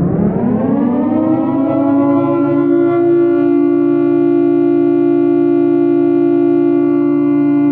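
Modern air-raid siren, pitched low, sounding the attack warning: it winds up in pitch over the first second or two, then holds a steady, loud tone of two close notes.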